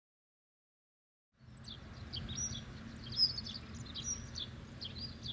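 Dead silence for about a second and a half, then outdoor ambience fades in: a low steady rumble with small birds chirping over it, short high calls repeated every half second or so.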